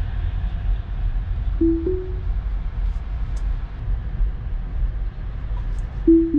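Steady low road and tyre rumble inside a Tesla Model 3's cabin. About a second and a half in comes a short two-note chime rising in pitch, the Autopilot engaging. Near the end a two-note chime falls in pitch, Autopilot disengaging after the driver turns the wheel.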